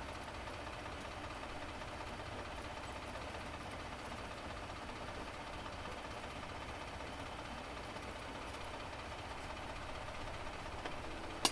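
Vehicle engine idling steadily, a low, even rumble, with a sharp click near the end.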